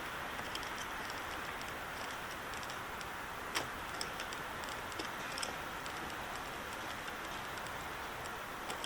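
Scattered small sharp clicks and ticks, the loudest about three and a half seconds in, from a pin tool and fingers working the terminals out of a 34-pin AMP Superseal ECU connector, over a steady hiss.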